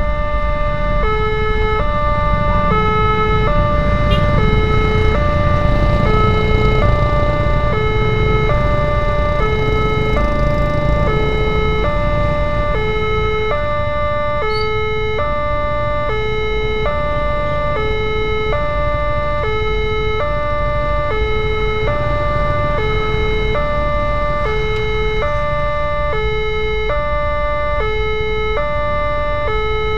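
Railway level-crossing warning alarm: an electronic chime alternating between a high and a low tone, each about half a second, repeating steadily, signalling that a train is approaching and the barrier is coming down. Idling and passing motorcycle and car engines rumble underneath.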